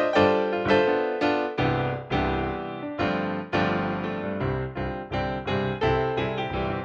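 Background piano music, a run of single notes each struck and left to fade, several to the second.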